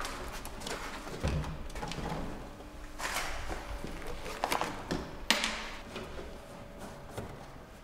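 Handling noises as the headlamp of a BMW 507 is taken out: the glass lamp unit and its metal rim rubbing and scraping, with a few sharper clicks and knocks, the loudest a little past the middle.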